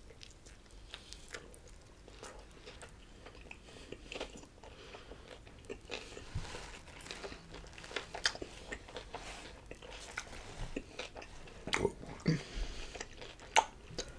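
Close-up chewing and biting of a chicken gyro wrap in a soft flour tortilla: irregular wet mouth clicks and smacks, more frequent and louder near the end.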